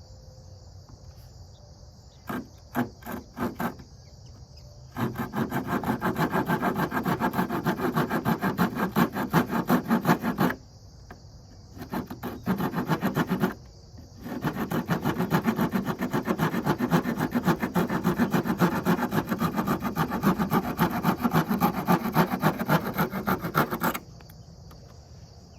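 Multitool folding saw blade cutting through soft wood (pine or poplar) in quick back-and-forth strokes: a few tentative strokes to start the cut, then two long steady runs of sawing with a short pause between. Crickets chirp steadily behind.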